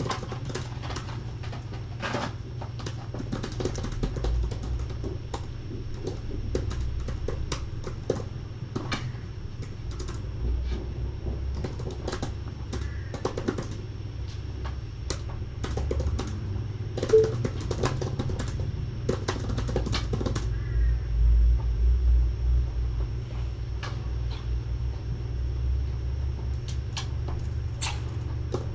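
Typing on an Apple laptop keyboard: irregular runs of key clicks with short pauses, over a steady low hum.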